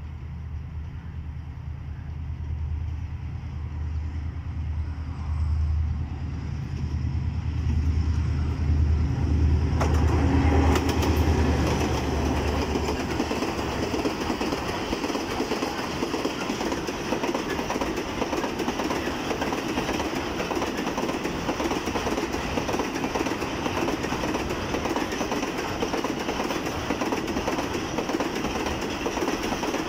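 Diesel locomotive of a container freight train approaching, its engine growing louder until it passes about ten seconds in. The loaded container wagons then roll by fast with a steady clatter of wheels on the rails.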